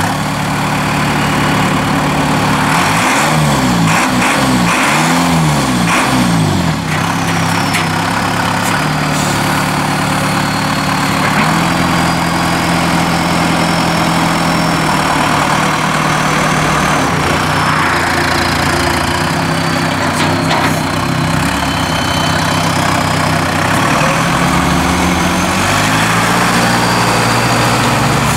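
John Deere 5101E tractor's four-cylinder turbo diesel running as the tractor drives with its front loader. The engine pitch swings up and down several times a few seconds in, then holds a steady note with a few small changes in engine speed.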